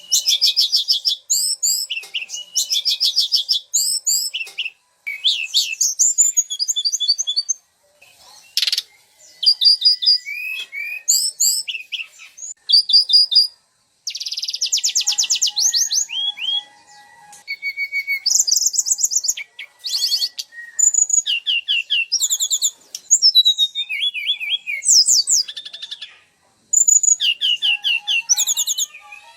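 Songbirds singing loud, rapid trills and chattering chirps in quickly changing phrases, with a few short pauses.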